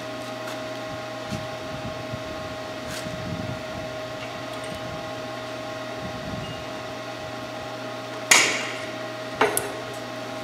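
Forney Easy Weld 110 stick welder humming steadily while switched on but not arcing. There are two sharp metal clanks near the end.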